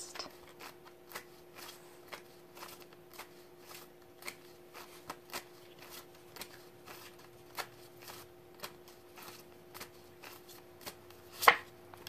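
Tarot cards being shuffled by hand: irregular light card snaps and taps, a few a second, with a louder snap near the end, over a faint steady hum.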